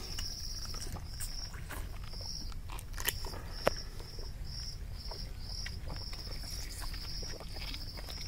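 A person sucking and chewing juicy cashew apples, with a few short wet smacks, the loudest two about three seconds in. Behind it an insect chirps in even, high pulses about twice a second.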